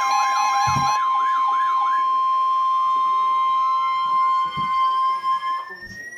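Emergency alert attention tone: a steady, high-pitched beep held for several seconds that cuts off shortly before the end, with a warbling sound over it in the first couple of seconds and a slowly rising whistle-like tone.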